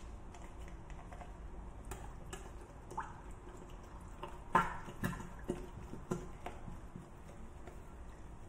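Cooking cream glugging out of a small carton into a saucepan of white sauce, in a run of splashy pulses about half a second apart midway, with light clicks from handling the carton and its cap before.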